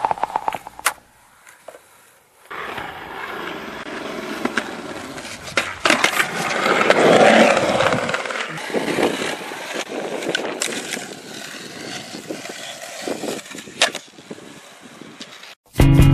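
Skateboard wheels rolling on concrete, with a few sharp clacks and knocks of the board against the ground. The rolling noise grows louder about seven seconds in.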